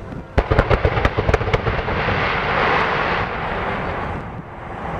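Fireworks: a quick string of sharp cracks in the first second and a half, followed by a crackling hiss that swells and then fades out about four seconds in.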